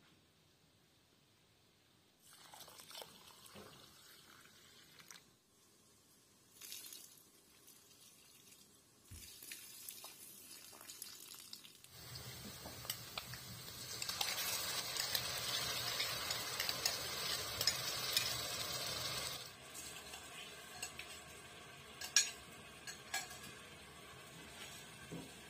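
Chopped food frying in oil in a pot, with wooden-spoon stirring and scraping. The sizzle grows loud in the middle for about five seconds and then settles to a softer frying hiss broken by a few knocks of the spoon. Earlier there are intermittent splashes of liquid being poured from a clay jug.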